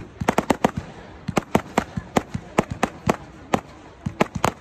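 Ground-launched multi-shot firework cake firing: a rapid, irregular string of sharp bangs, about four or five a second, with brief lulls just after a second in and near the end.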